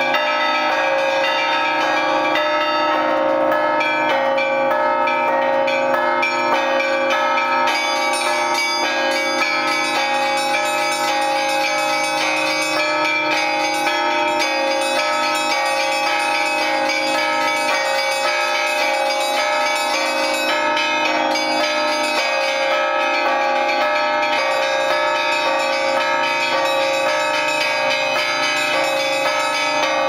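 Russian Orthodox church bells rung in a full peal (trezvon) by one ringer pulling the clapper ropes, with all the belfry's bells in play. Quick, rhythmic strokes on the small bells ring over the deeper bells, and the tones overlap in a continuous, unbroken sound.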